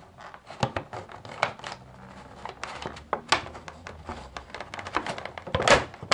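Irregular clicks, taps and scrapes of a blunt knife and fingers working in a clear plastic blister tray, sawing through a rubber band that ties down a toy figure, with a louder clatter near the end.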